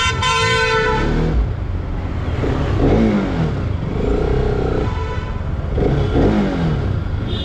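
A vehicle horn sounds for about a second, then a motorcycle engine is revved in short throttle blips that rise and fall, over a steady traffic rumble.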